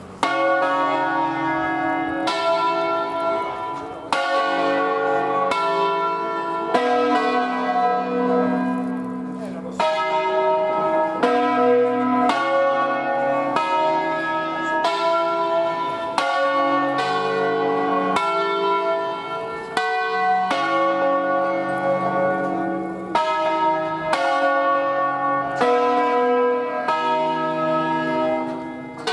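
A peal of five church bells tuned from B2, cast by Barigozzi of Milan, rung by hand with ropes in the Ambrosian style, the bells swinging mouth-up and striking in turn. A new strike comes about every second or less, the tones overlapping and ringing on.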